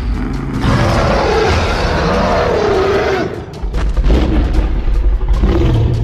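Animated fight sound effects: a long roar with a wavering pitch, then, after a brief drop about three and a half seconds in, a deep booming rumble.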